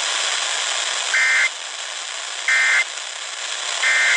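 Emergency Alert System end-of-message data bursts over a radio: three short two-tone digital screeches about 1.4 seconds apart, over steady radio hiss. They mark the end of the relayed severe thunderstorm warning.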